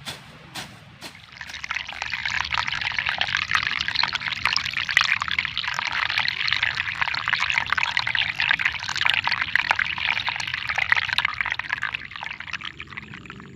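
Water splashing and trickling steadily, starting about a second and a half in and dying away near the end.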